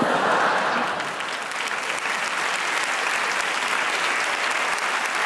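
Large theatre audience applauding, breaking out suddenly and loudest at first, then easing off slightly while it carries on.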